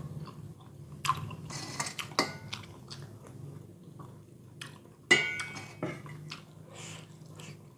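A person eating bakso soup: chewing, with scattered clicks of a spoon against the bowl; the sharpest clink, about five seconds in, rings briefly.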